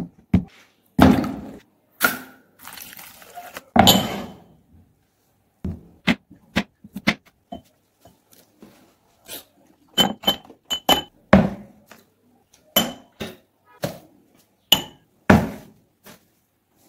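Kitchen preparation on a wooden chopping board: a string of separate knocks and thuds from the knife and lemons on the board. From about ten seconds in come sharper clinks with a short ring, from a steel spoon and drinking glasses.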